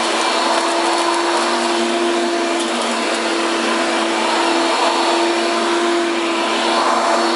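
Hoover Power Drive U6311-930 self-propelled upright vacuum running at a steady pitch: its 7.8-amp motor gives a constant tone over a broad rush of air.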